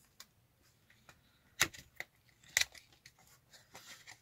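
Two sharp clicks about a second apart as a makeup item and its packaging are handled, with a few fainter ticks and soft rustling of packaging near the end.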